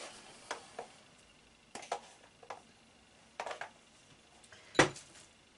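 Scattered light clicks and clinks of a salt container and kitchen utensils being handled while salt is measured out. One sharper knock comes near the end.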